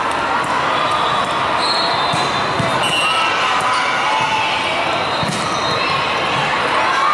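A volleyball is bounced a few times on a hardwood court floor and then struck for a serve, a sharp smack shortly before the end. Underneath runs the steady noise of a crowded sports hall full of voices.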